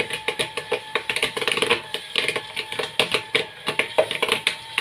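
Popcorn kernels popping in a popcorn machine's kettle: a dense, irregular crackle of quick pops, with a faint steady tone underneath.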